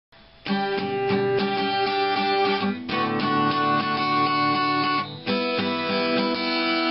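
Guitar strummed in a steady rhythm as a song's introduction, starting about half a second in, with chord changes about three seconds in and again about five seconds in.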